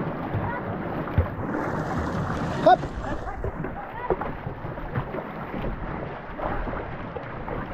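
Two-person racing canoe moving through choppy wakes: paddles working the water and water splashing and rushing along the hull, with wind buffeting the microphone. There is a brief louder knock about two and a half seconds in.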